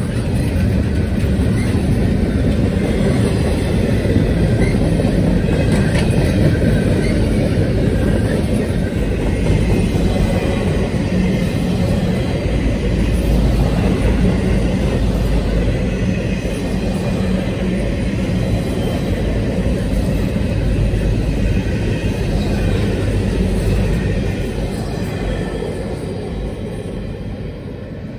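Double-stack intermodal freight train's container well cars rolling past at speed, a steady rumble of wheels on rail that fades over the last few seconds as the end of the train passes and moves away.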